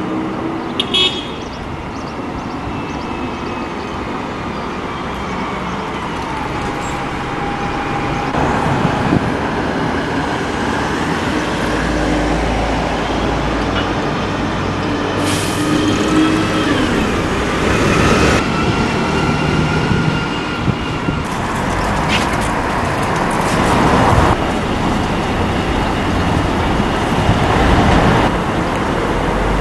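Diesel engines of Alexander Dennis Enviro200 single-deck buses running and pulling away close by, their whine rising in pitch several times, over steady town traffic. Near the end a double-deck bus approaches.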